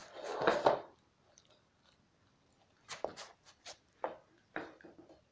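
Malamute puppy chewing and biting at a mop. A loud rustling burst comes in the first second, then scattered short crunching clicks a few seconds later.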